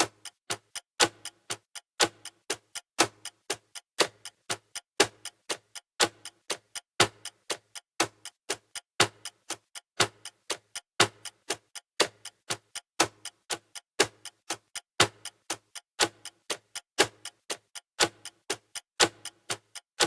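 Clock ticking in a steady countdown: sharp clicks about four a second, with a louder tick once every second.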